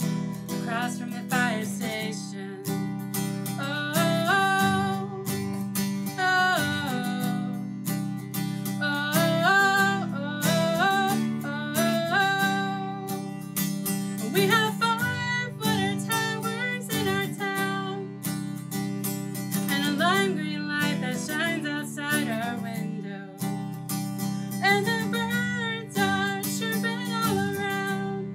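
A woman singing a song with strummed acoustic guitar accompaniment.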